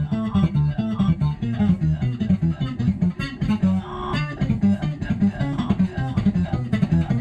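Electric bass playing a fast run of notes through a DigiTech X-Series Synth Wah with distortion. The synth tone follows every note super tight.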